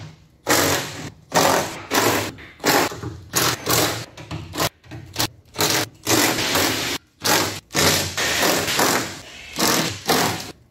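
Cordless impact wrench hammering in a dozen or so short bursts, spinning bolts out of a Nissan Leaf battery pack's lid flange.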